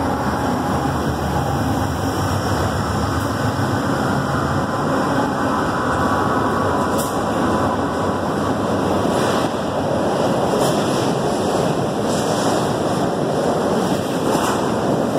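Freight train passing close by: diesel locomotives run past with a steady low engine rumble, then freight wagons roll by with continuous wheel-on-rail noise and a few sharp clicks.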